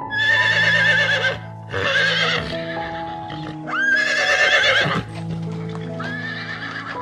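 Horse whinnying four times, each neigh quavering in pitch, the first and third loudest and the last weaker, over background music with long held notes.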